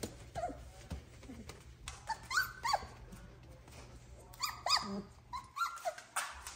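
Young Doberman puppies whimpering and yelping: short high-pitched cries that drop in pitch, several in quick succession about two seconds in and again through the last two seconds.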